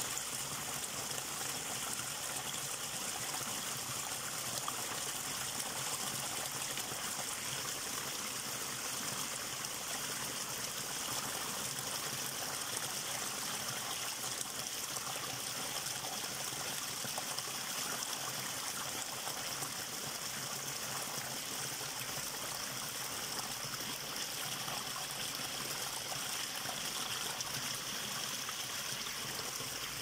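A small rocky stream pouring steadily through a narrow gap between boulders in a little cascade: an even splashing rush of water with no breaks.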